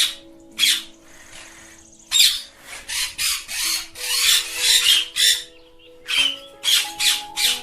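Ringneck parrots squawking, a quick series of harsh screeches, some in a rapid run around the middle.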